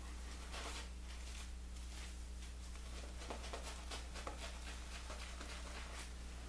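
Edward Barnes & Sons 6/8 near-wedge straight razor scraping through stubble in a run of short, irregular strokes, over a steady low hum.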